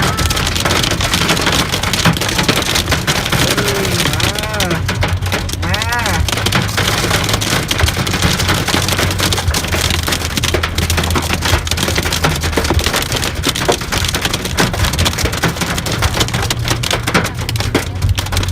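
A hailstorm with heavy rain pelting down: a dense hiss studded with many sharp ticks of hailstones striking, over a low steady rumble.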